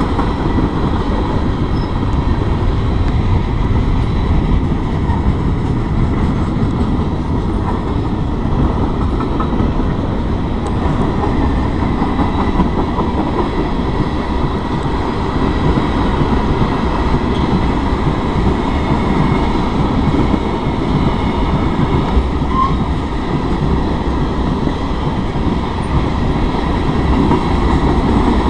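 Canadian National freight train rolling steadily through a grade crossing: a continuous rumble of railcars on the rails, with a faint steady high tone above it.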